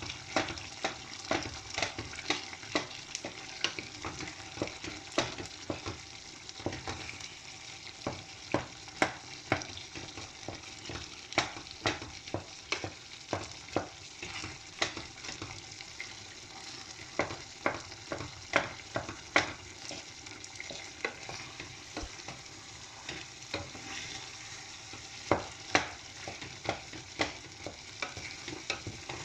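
Spoon mashing and stirring soft yam and plantain pottage in a pot, with irregular sharp knocks of the spoon against the pot over the steady sound of the pot cooking on the gas.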